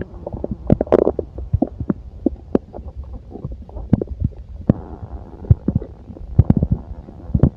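A person's stomach gurgling and rumbling, picked up close: a quick, irregular run of short pops and gurgles over a steady low rumble.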